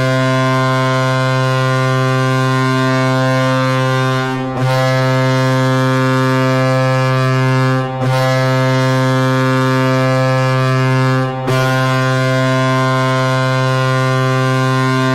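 Hockey arena goal horn for the Colorado Avalanche sounding four long, deep blasts of about three and a half seconds each, with short breaks between them, signalling a home goal.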